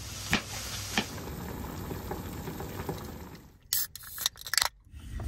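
A kitchen knife cutting daikon radish on a wooden cutting board, with a few sharp knocks of the blade on the board. Near the end two aluminium drink cans are cracked open, the tabs popping with short hisses of escaping fizz.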